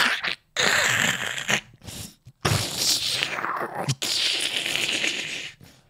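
A man making crackling, crunching mouth sound effects in several hissing bursts, the longer ones a second or more each, imitating stone walls cracking apart.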